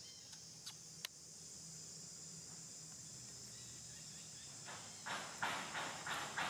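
Steady high-pitched drone of insects in the forest, with two sharp clicks about a second in. From about five seconds a run of dry crackles comes a few times a second.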